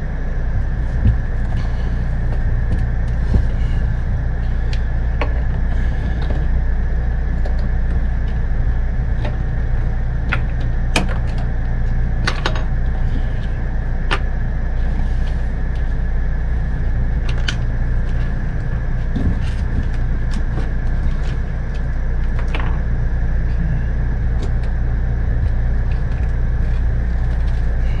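A steady low mechanical hum with a thin, constant high whine above it, and scattered small clicks and knocks from handling plumbing parts and tools.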